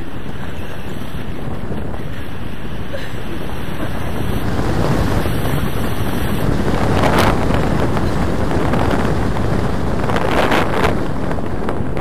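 Wind buffeting the microphone of an action camera held out in tandem paraglider flight: a loud, steady rush that swells twice, about seven and ten seconds in.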